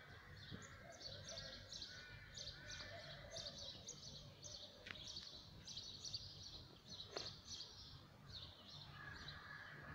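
Small birds chirping faintly, short high notes repeating several times a second, over a low steady background noise.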